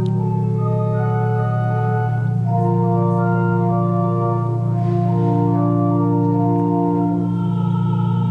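Organ music: chords held over a steady low bass, with the upper notes moving every second or so. A brief soft hiss rises and fades about five seconds in.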